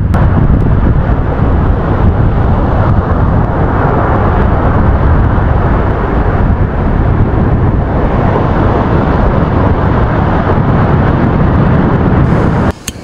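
Strong wind rushing and buffeting over the microphone, a loud, steady low rumble that cuts off suddenly near the end.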